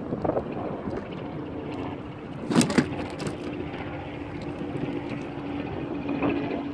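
A steady engine drone under the splash and lap of river water, with a short cluster of knocks about two and a half seconds in.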